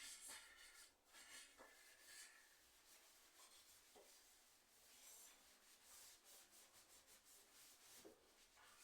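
Near silence with faint rubbing or scraping and a few soft knocks.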